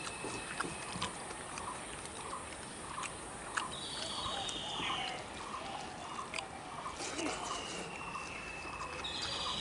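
Hand-eating sounds: rice being mixed and scooped off a banana leaf, with small clicks and smacks. Birds call in the background throughout: a buzzy call about a second long comes every few seconds, over a steady run of short notes about twice a second.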